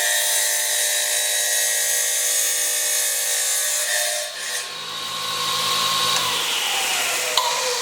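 Electric wet tile saw running with a steady whine, then switched off near the end, its whine falling in pitch as the blade spins down.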